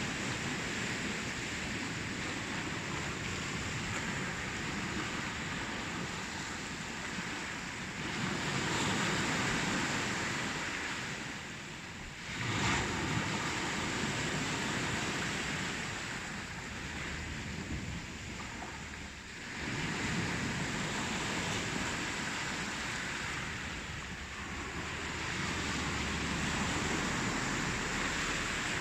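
Ocean surf, waves breaking and washing in as a continuous rush that swells and ebbs every few seconds, with a sharper surge about twelve seconds in.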